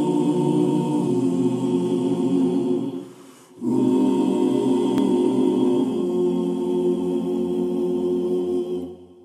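Music intro: wordless, choir-like voices holding long sustained chords in two phrases. There is a short break about three seconds in, and the sound fades out near the end.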